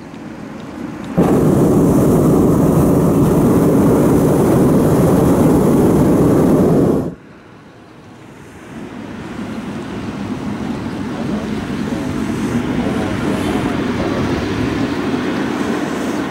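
Hot-air balloon's propane burner firing in one blast of about six seconds: a loud, steady rushing noise that starts and cuts off abruptly. A quieter steady rushing noise follows and slowly grows.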